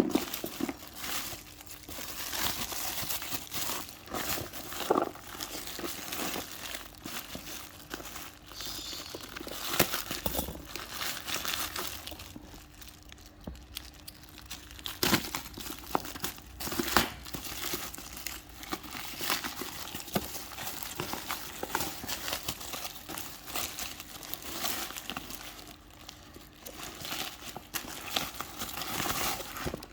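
Parcel packaging being handled and opened by hand: irregular crinkling and crumpling rustles, with sharper rips here and there.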